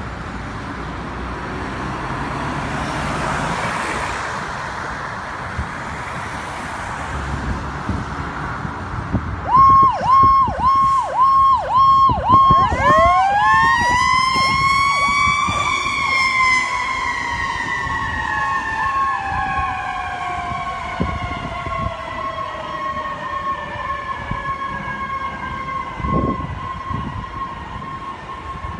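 A fire engine's sirens. An electronic siren starts in a fast pulsing yelp, and a few seconds later a Federal Q mechanical siren winds up to a high wail and then slowly winds down while the electronic siren keeps sounding. Before the sirens start there is a steady rush of vehicle noise.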